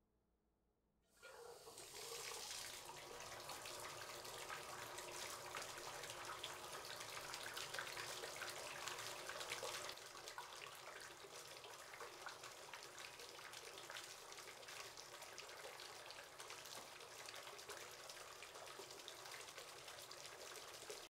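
Water running steadily from a tap into a bathtub. It starts suddenly about a second in and turns a little quieter about ten seconds in.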